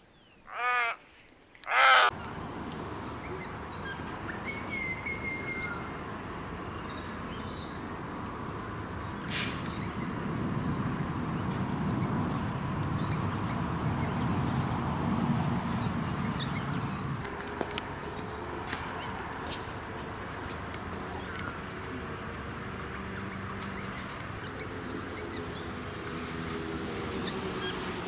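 White-necked heron giving two loud, harsh croaks about a second apart. Then New Holland honeyeaters make short, high chips and brief whistles over a steady outdoor background hiss.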